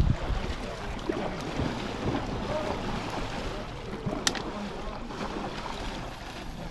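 Steady rush of river water mixed with wind on the microphone, with a sharp click about four seconds in.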